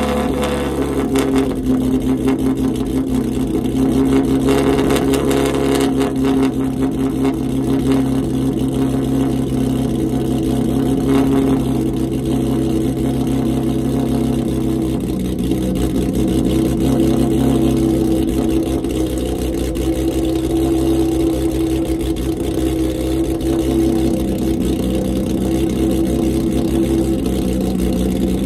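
Nissan 350Z's 3.5-litre V6, fitted with Tomei camshafts, idling steadily through its exhaust shortly after a cold start, with a slight change in tone about halfway through.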